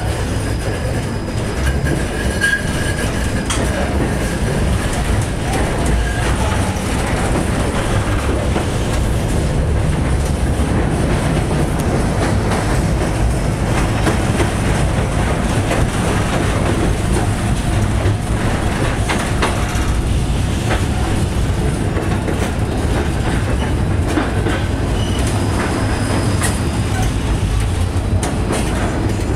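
Cabin sound of a 71-933 "Lev" low-floor tram on the move: a steady running rumble with scattered clicks and knocks from the wheels on the rails, and a brief high tone about two seconds in.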